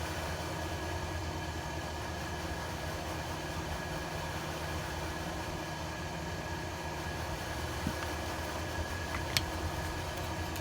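Steady low mechanical hum of a fan or machine running in the background, with a couple of light clicks near the end from small parts being handled.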